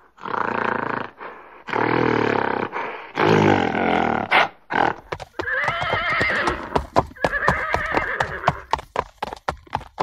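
Gorilla roar sound effects in the first four seconds, low and pulsing, then a horse whinnying over a fast run of galloping hoofbeats.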